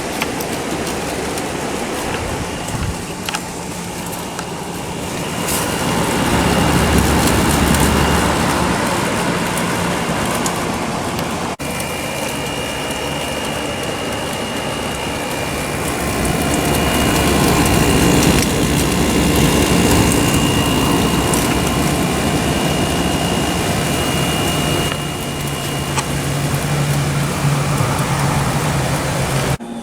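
Samsung 10,200 BTU window air conditioner running, its fan blowing a steady rush of air over a low hum from the Samsung rotary compressor and a faint high whine. The rush swells louder twice.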